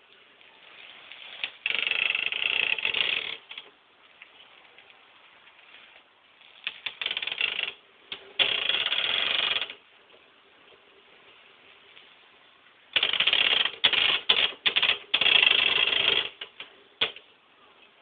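Kawasaki 1400GTR motorcycle being rolled backward, giving off an abnormal rapid rattling noise in several bursts of one to three seconds with pauses between, the last one broken up into short stutters. The noise appears only when the bike is moved in reverse.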